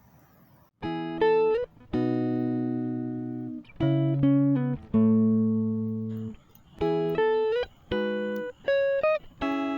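Background music: a tune of plucked guitar notes and chords, beginning about a second in.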